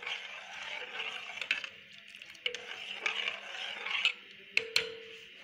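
A spoon stirring vermicelli in a pot of milk on the stove, with a few sharp clinks of metal against the pot, most of them near the end.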